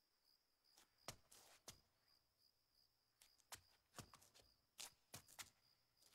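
Near silence: a cricket chirps faintly and steadily, and a handful of soft, scattered knocks and shuffles come from people moving and kneeling.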